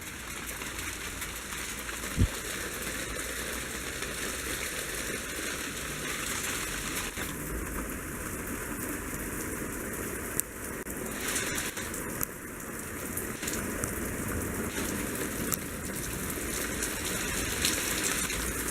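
Hail and rain pelting down: a steady rushing hiss scattered with sharp ticks of hailstones striking, and a single thump about two seconds in.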